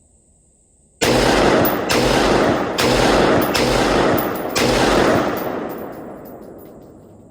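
Diamondback AR-15 rifle fired five times in steady succession, about one shot a second, each shot followed by a long echo that trails away after the last one.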